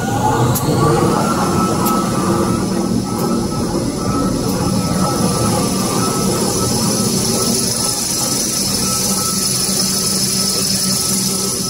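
Tissue-paper rewinding machine (a kitchen towel / maxi roll rewinder) running at speed: a steady high whine over a mechanical hum. The pitch rises up to about a second in as the machine comes up to speed.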